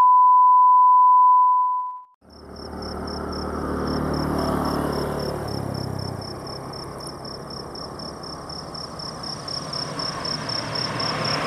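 A steady 1 kHz test tone that cuts off about two seconds in. Then crickets chirp in rapid, even pulses over a low engine rumble of traffic.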